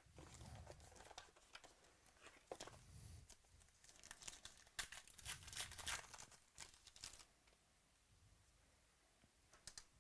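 Trading card packaging being torn open and crinkled, a run of short rips and crackles that are loudest around the middle and die away after about seven seconds.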